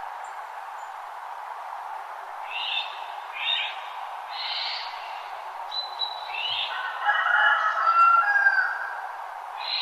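Wild songbirds at dawn: short, high chirping calls repeated every second or so, then a louder whistled song of several notes in the second half, over a steady background hiss.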